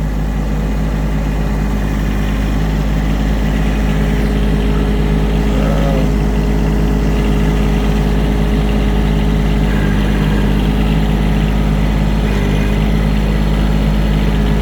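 Farm tractor engine running steadily, a loud, even drone that grows slightly louder over the seconds.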